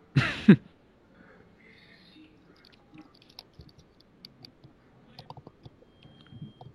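A short, loud vocal sound with falling pitch at the very start, then faint scattered clicking.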